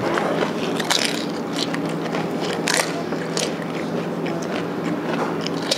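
A person biting and crunching golgappe (crisp, hollow fried puri shells) one after another, with sharp crunches every second or so over a steady low hum.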